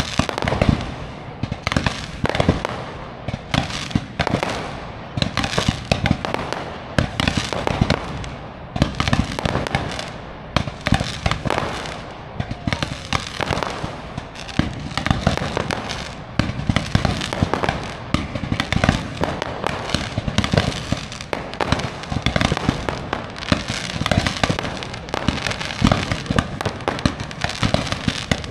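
Fireworks display: aerial shells bursting in rapid succession, many sharp bangs overlapping with no let-up.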